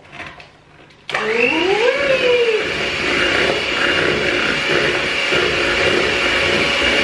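Electric hand mixer switched on about a second in, its motor whine rising in pitch as it speeds up and then running steadily as the beaters whisk icing in the bowl.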